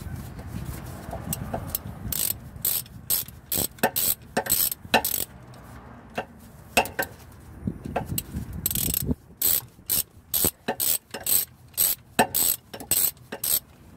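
Hand ratchet wrench clicking in runs of short strokes as a bolt is turned out, with a lull midway and then a steady run of about two clicks a second.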